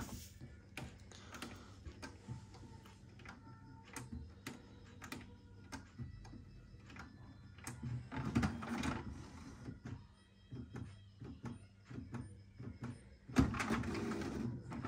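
HP Ink Tank 319 inkjet printer running its print-head cleaning cycle: quiet scattered mechanical clicks and short motor whirs from the carriage and ink pump, with two louder spells of mechanism noise, one in the middle and one near the end.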